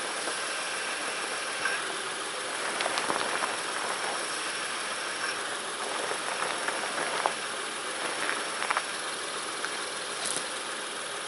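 2006 Honda Ridgeline's 3.5-litre V6 idling steadily while the front wheels are steered at a standstill on its freshly replaced power steering pump, with a few light clicks and knocks scattered through.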